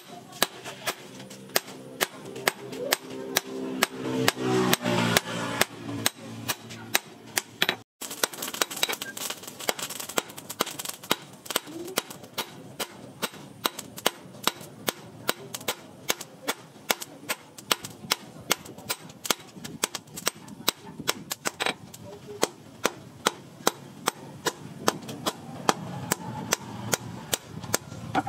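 Hand hammer forging a red-hot steel blade, cut from a motorbike sprocket, on a steel post anvil: a steady run of sharp metallic blows, about two to three a second.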